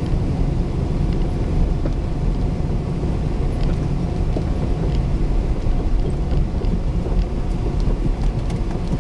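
Cabin noise inside a moving Jeep: a steady low rumble of engine and tyres on the road.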